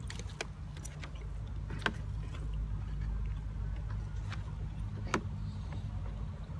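A few sharp clicks of a metal knife and fork against a takeaway food wrapping while eating, the clearest about two seconds and five seconds in. Under them is a steady low rumble.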